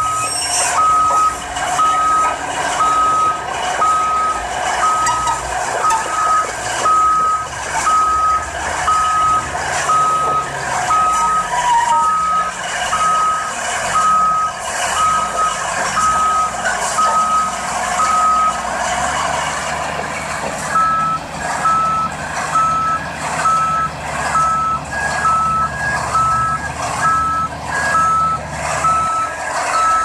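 Backup alarm on a Caterpillar D11R bulldozer beeping about once a second as the dozer reverses along a lowboy trailer, over the low running of its diesel engine. The beeping pauses about two-thirds of the way in, then resumes with a second, higher-pitched alarm alternating with the first.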